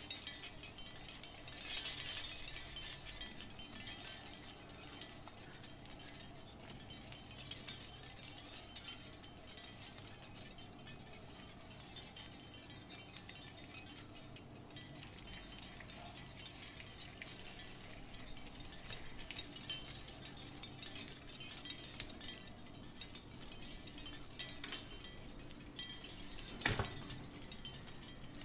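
Small metal parts of a miniature finger-bike model clicking and clinking as they are handled and worked loose with a tiny screwdriver and pliers, with one sharper click near the end.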